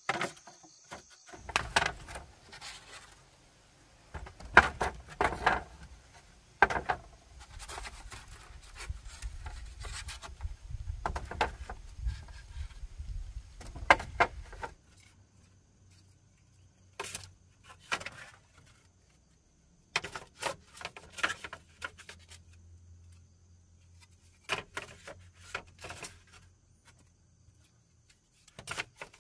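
Hollow bamboo poles knocking and clattering against one another as they are laid and shifted into place, with irregular sharp knocks and stretches of rubbing and scraping as the poles slide over each other.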